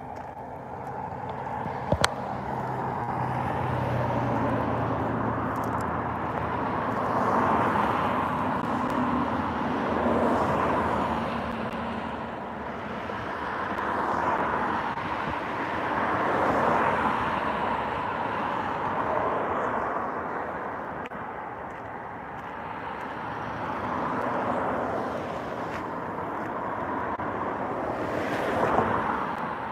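Road traffic passing, its noise swelling and fading every few seconds. A low engine hum runs through the first several seconds, and one sharp click comes about two seconds in.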